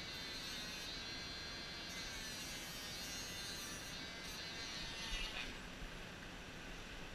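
Electric pet grooming clippers running steadily while trimming the fur around a dog's paw, switched off about five and a half seconds in.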